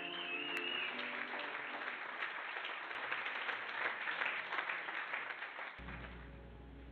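Audience applauding after a live music performance ends about a second in; the clapping cuts off near the end, giving way to a low steady hum.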